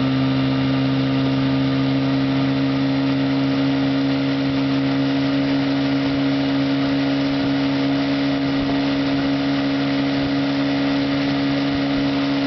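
1958 West Bend Muskie 8-horsepower two-stroke outboard motor running at open throttle, a loud, steady drone that holds one pitch.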